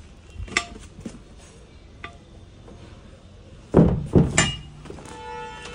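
A few light clicks, then three loud knocks in quick succession about four seconds in, from a tractor canopy roof being handled and knocked. Faint music comes in near the end.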